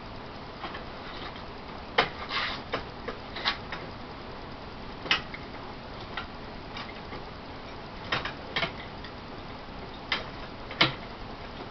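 Irregular sharp clicks and light knocks, about ten in all, over a steady background hiss: metal patio umbrella parts and hand tools being handled as they are fitted together.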